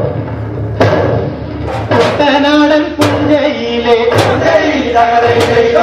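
A Kerala boat-race song (vanchipattu) sung over a beat, with held notes and sharp percussive strikes about once a second.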